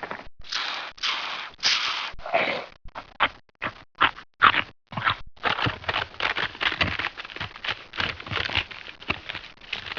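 A string of vintage cartoon sound effects played back to back: three longer noisy bursts in the first couple of seconds, then several short separate bursts, then a long rapid run of short clicks and crackles.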